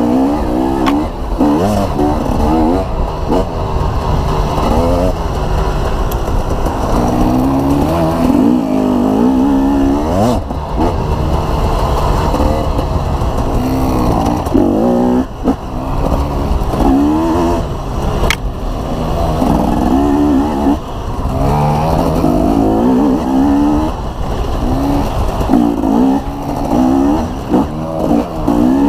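Dirt bike engine revving up and dropping back over and over as the bike accelerates and shifts along a trail. A single sharp click or knock comes about two-thirds of the way through.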